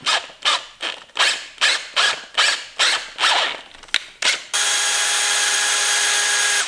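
DeWalt cordless drill drilling out a damaged bolt hole in an engine block to take a helicoil insert. The trigger is blipped in short bursts, about two or three a second, then held down for a steady run near the end that stops abruptly.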